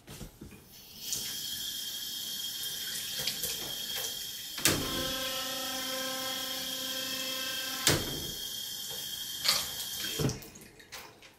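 Water running from a tap into a sink, starting about a second in and shutting off near the end. About halfway through, a hum comes in with a click and stops with another click about three seconds later.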